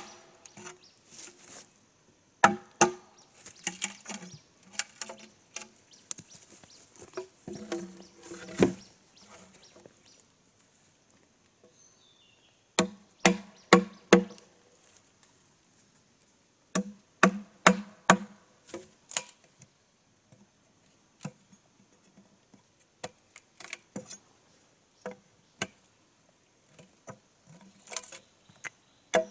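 Machete chopping into bamboo poles: quick clusters of sharp strikes, each ringing briefly, with pauses between. The strikes come as single, spaced-out blows near the end.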